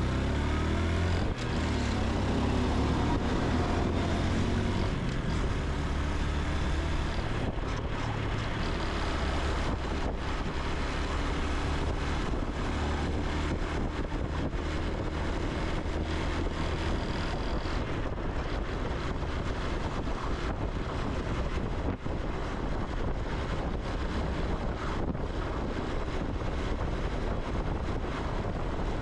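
Honda Super Cub C125's air-cooled single-cylinder engine and exhaust while riding, rising in pitch as it accelerates over the first few seconds, then running steadily at cruising speed.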